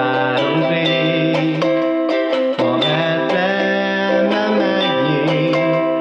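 Ukulele strummed in a steady rhythm through an instrumental break, with sustained low bass notes beneath the chords.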